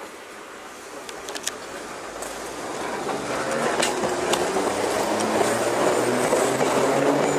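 Class 483 electric train (ex-London Underground 1938 tube stock) pulling away from the platform: its motors and wheels on the rails get steadily louder as it gathers speed past. A few sharp clicks about a second in.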